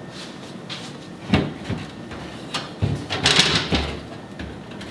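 A refrigerator shelf being handled and slid out: a sharp knock about a second and a half in, then a scraping slide with low thuds around three seconds in.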